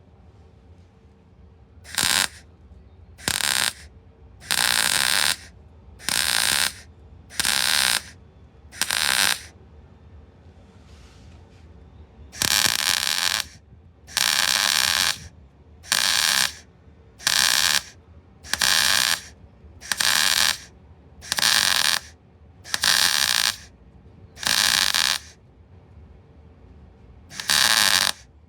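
Welder laying a series of short tack or stitch welds on a car's thin steel sill. It makes about fifteen bursts of crackling hiss, each under a second, with short pauses between. The short bursts are the way to go slowly on thin metal without blowing holes.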